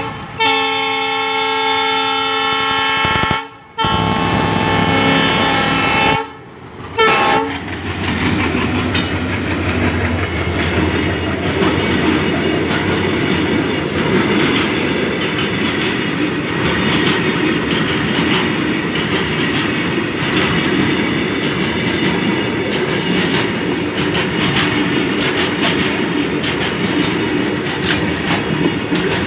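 Goods train horn sounding two long blasts and a short one, then the freight wagons running past close by, their wheels clicking over the rail joints.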